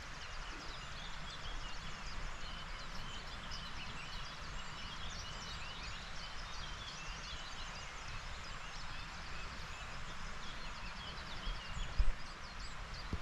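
Small birds singing and chirping continuously, many short high notes and trills overlapping, over a steady background hiss; a single dull knock near the end.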